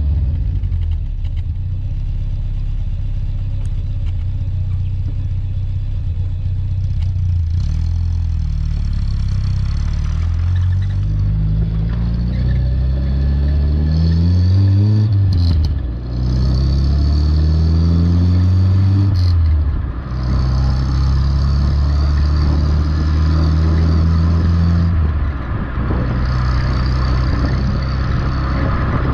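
Renault Super 5 GTS exhaust, with its intermediate silencer removed and a straight tube fitted in its place, heard from the tail of the car as it drives off. The engine note climbs and drops at several gear changes, then holds steady at a cruise.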